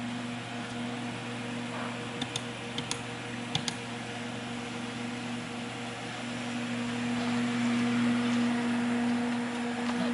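Vitronics GP-104 furnace running during zone testing: a steady blower noise with an electrical hum. There are a few short, sharp clicks about two to four seconds in, and the noise swells slightly near the end.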